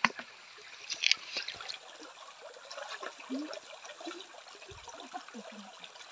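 Shallow rocky stream trickling, with water sloshing as a hand net is dipped and moved through it. A few sharp clicks about a second in.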